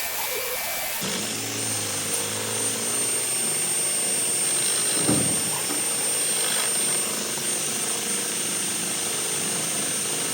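An electric power tool's motor running steadily with a thin high whine, and a single knock about five seconds in.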